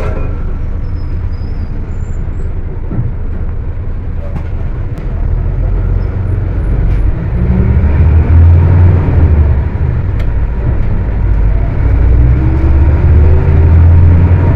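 Volkswagen 17-230 OD bus's diesel engine pulling under acceleration, its pitch rising twice and growing louder from about halfway, revving high.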